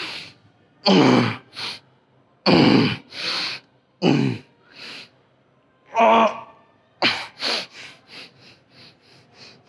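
A man grunting and exhaling forcefully in short bursts, about one every one to two seconds, as he strains through reps of Zottman curls. About seven seconds in, these turn into quick panting breaths, roughly three a second.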